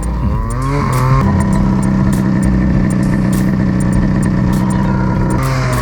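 Snowmobile engine revving up over the first second, then running steadily at speed, its note dropping off near the end. Regular sharp knocks sound throughout.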